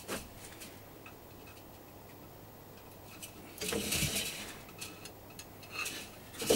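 Small clicks and taps of hands working frame wire on a wooden Dadant beehive frame, with a short scraping rustle about four seconds in.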